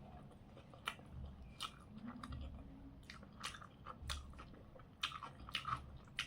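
A person chewing a mouthful of potato and soyabean fry close to the microphone, with irregular soft wet mouth clicks and smacks.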